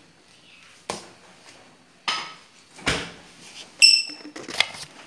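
Kitchen dishes clattering: several separate knocks as plates and bowls are handled and set down on the counter, with one ringing clink a little before four seconds in.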